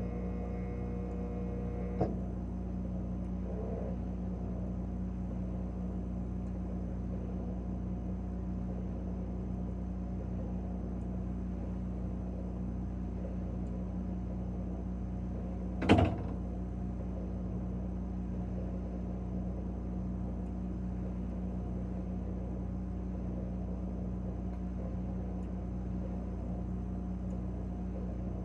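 Refrigerator running with a steady hum, heard from inside the closed fridge. A faint tone cuts off with a click about two seconds in, and a single sharp knock comes about sixteen seconds in.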